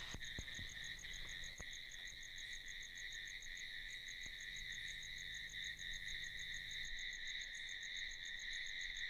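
Night insect chorus: a steady high-pitched trilling with an even, faster chirping above it, about six chirps a second. A few faint clicks come in the first two seconds.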